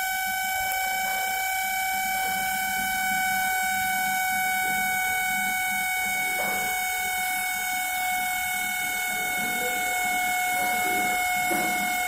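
LG convection microwave oven running with its cover off, giving a steady high-pitched whine. This is the fan motor noise that the repairer says means the motor must be changed.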